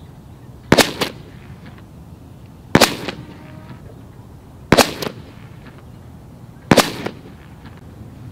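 Four shots from a Cothran .457 big-bore high-pressure air pistol firing round balls, heard from downrange at the target, about two seconds apart. Each shot is a double crack, with a second, slightly weaker crack about a third of a second after the first.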